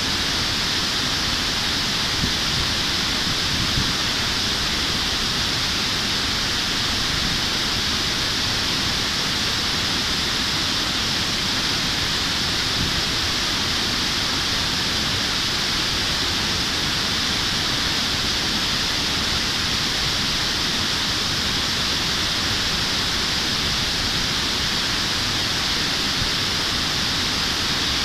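Steady rush of river water pouring over a low sloping concrete weir and churning below it, an even hiss with no breaks.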